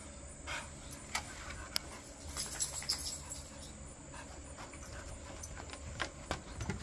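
A dog panting, with a scatter of light clicks and knocks as it climbs out of a folding mesh lounge chair and steps across a wooden deck.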